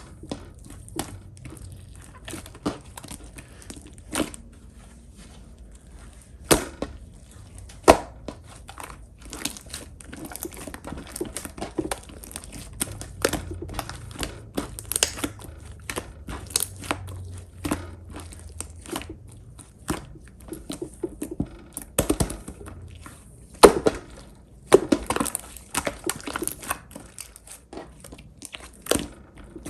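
Clear slime being squished and stretched by hand, giving a run of irregular sticky pops and crackling clicks.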